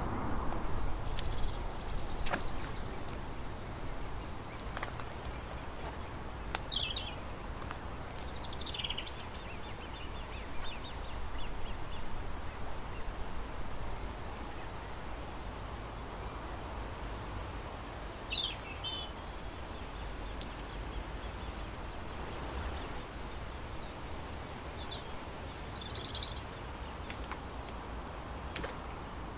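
Outdoor ambience: a steady low background rumble with short, high bird chirps a few times, in small clusters about a third of the way in, just past halfway and near the end.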